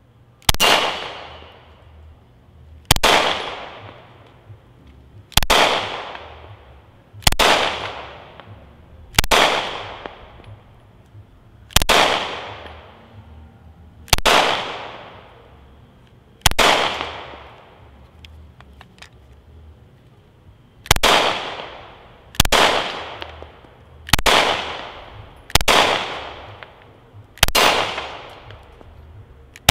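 Taurus G3 9mm pistol fired one-handed in slow single shots, thirteen in all, about every two seconds with a pause of about four seconds partway, each shot trailing off in a long decay. The pistol cycles every round without a stoppage.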